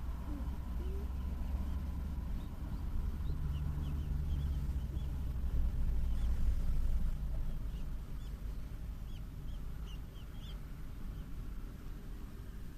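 A sleeping black cat making soft sleep noises: a low breathy rumble with faint murmurs, the sort of sound that is hard to call either snoring or sleep-talking. It is loudest a little past halfway, then settles.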